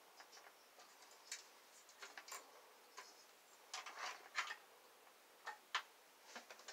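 Faint, irregular clicks and ticks of plastic SATA power connectors and cables being handled and pushed into drives inside a computer tower, with a small flurry of clicks about four seconds in.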